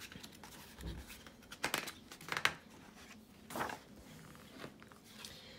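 Paper pages of a hardback picture book being turned and smoothed flat by hand: several short, soft rustles and swishes of paper.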